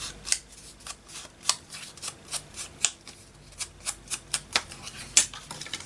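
An ink pad dabbed against the edges of a paper cutout: a string of light, irregular taps, about two or three a second.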